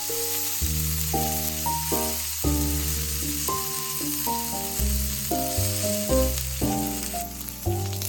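Background music with a melody and bass line over the steady sizzling of food frying in a pan. The sizzling thins out about seven seconds in.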